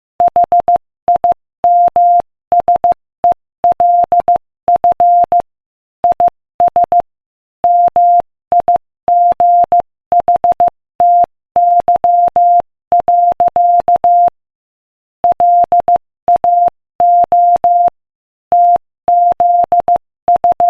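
Morse code sent as a single steady beep switched on and off in short and long pulses at 15 words per minute, with longer pauses between letters and words. The code stops near the end.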